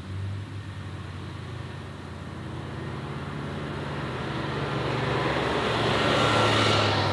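Heavy eight-wheeled self-propelled howitzer driving on a dirt track, its engine running with a steady low hum under the noise of big tyres on sand and gravel. It grows louder as it approaches, passes close about six seconds in with a falling whoosh, then starts to fade.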